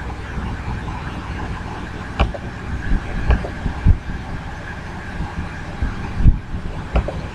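Steady low background rumble with a handful of short, sharp clicks and knocks scattered through it, the loudest about four and six seconds in. These are mouse clicks and desk knocks picked up by the computer's microphone.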